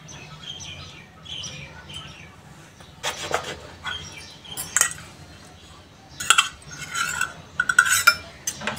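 A steel bowl's rim pressed and twisted down through slices of bread on a wooden cutting board, giving scattered knocks, clicks and scrapes, busier from about three seconds in and again near the end.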